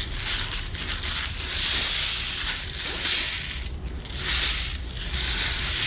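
Two homemade rain sticks, cardboard paper-towel and toilet-paper rolls filled with rice, being tipped end over end. The rice pours through the tubes in a rushing hiss like rain that swells and fades each time a tube is turned over.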